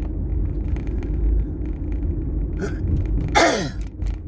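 Steady low rumble of a car's engine and road noise heard from inside the cabin. A little over three seconds in comes one short, breathy vocal sound that falls sharply in pitch.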